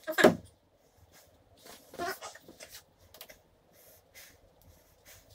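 Light clicks and small knocks of metal hardware being handled and set down, with a short falling whine at the very start.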